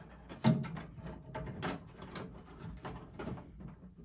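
Irregular clicks, taps and light scrapes of hands working a plastic zip tie and wiring harness inside the hollow sheet-steel cavity of a Ford Bronco tailgate, with one louder knock about half a second in.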